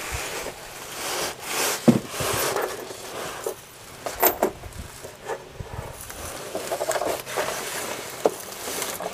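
Irregular knocks, scrapes and rustling from a man working under a van: a long wrench and bolts handled against the sway bar and his body shifting on the ground.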